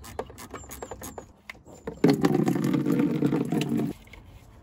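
A few light clicks as the radiator's drain plug is worked loose, then coolant pouring into a plastic bucket for about two seconds, starting and stopping abruptly.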